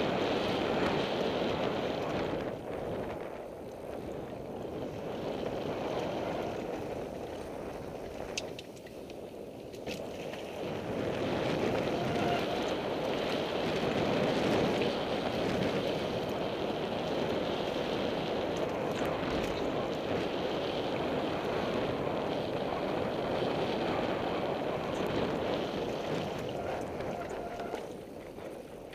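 Downhill mountain bike (Devinci Wilson) descending a rocky gravel track, heard from a helmet-mounted camera: a steady rush of wind on the microphone mixed with tyres rolling over loose stone and the bike rattling. There are a couple of sharp clicks about eight and ten seconds in, and the sound eases off near the end as the bike slows.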